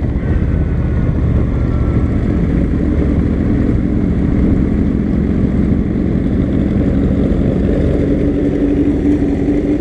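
Motorcycle riding at a steady pace: the engine's steady drone under heavy wind rush on the microphone. The drone comes through a little more strongly near the end.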